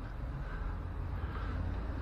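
Steady low background rumble, with no distinct knocks or clicks.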